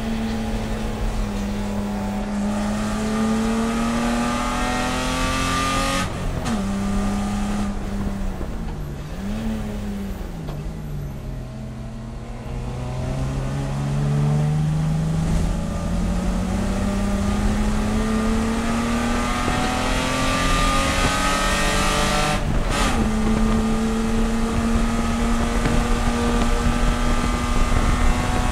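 BMW E30 race car engine at racing speed. About six seconds in, the engine note drops and wavers, then climbs steadily for about ten seconds under acceleration. A short break at a gear change near the end sets it to a steady high note.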